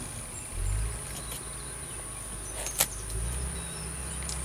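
Outdoor background of a steady, high-pitched insect drone over a low rumble, with a few faint clicks and one sharper click about three seconds in.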